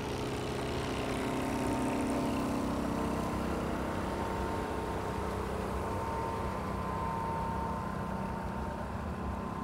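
Steady drone of vehicle traffic and engine noise, with a low hum that is strongest in the first few seconds and then eases off a little.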